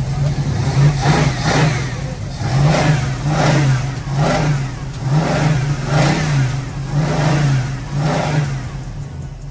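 Cammed LS-swapped V8 in a G-body Monte Carlo revved in quick throttle blips, about ten in a row, each rising and falling. The exhaust-leak noise is no longer heard now that new header gaskets are fitted.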